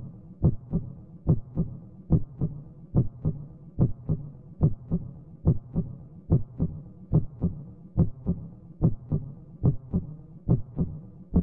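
Steady heartbeat: paired low thumps (lub-dub) repeating evenly a little under once a second, about 70 beats a minute.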